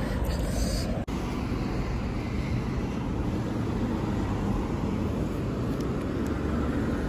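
Road traffic noise: a steady rumble of cars passing on a busy street, broken by a brief dropout about a second in.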